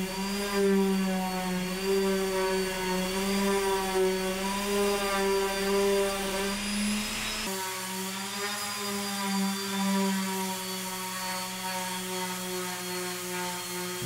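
Electric random orbital sander running against a wooden box: a steady motor whine whose pitch wavers slightly as it is pressed and moved over the wood. About halfway through the deep rumble beneath it drops away and the tone runs on steadier.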